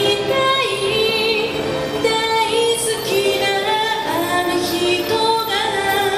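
A woman singing a Japanese song into a microphone with instrumental accompaniment, holding long notes that glide between pitches.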